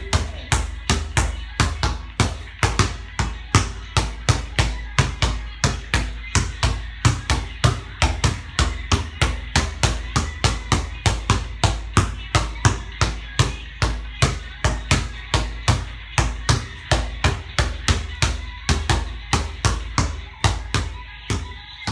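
Basketball being dribbled hard and steadily, about three bounces a second.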